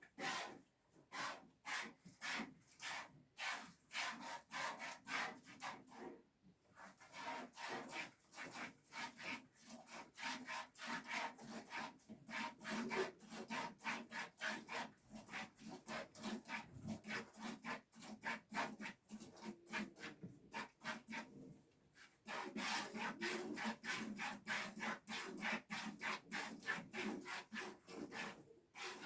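Rhythmic rubbing or scraping strokes, about two a second, pausing briefly twice.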